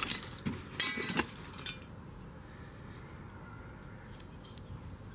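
Small rusty metal parts clinking and rattling against each other as hands rummage through a cardboard box of them: a few sharp clinks and one short rattle in the first two seconds.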